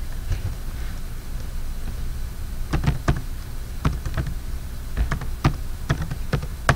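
Computer keyboard typing: about a dozen separate key clicks at an uneven pace, starting nearly three seconds in, over a steady low hum.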